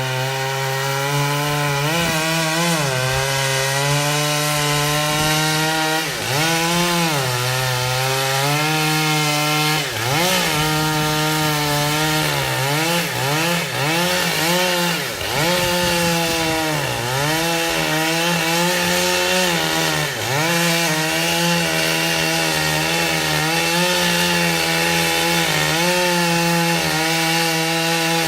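Chainsaw running at high revs and cutting wood. Its engine pitch dips again and again as the chain bites in, then climbs back.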